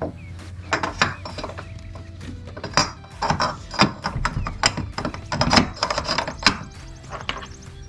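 Irregular metallic clicks and knocks as connecting pins are worked through the aluminum brackets joining the walkway to the floating dock, over a steady low hum.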